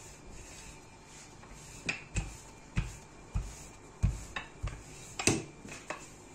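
Wooden rolling pin rolling out dough on a floured worktop, knocking and thumping against the surface as it is pushed back and forth: about ten irregular knocks, starting about two seconds in.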